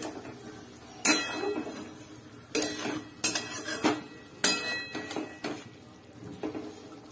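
Steel spatula scraping and knocking against a metal wok (kadai) while potatoes and jackfruit seeds are stirred and sautéed in a spice paste. It makes a series of irregular clanks, each with a short metallic ring.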